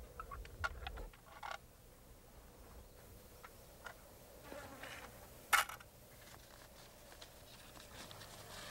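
Faint rustling and small clicks of a dry folded paper note being drawn out of a small tin can and unfolded, with one sharp crackle of the paper about halfway through.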